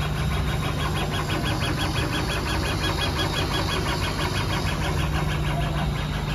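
CO2 laser engraving machine running with a rotary attachment: a steady low hum under a rapid, even ticking several times a second as the laser head sweeps back and forth engraving a bottle.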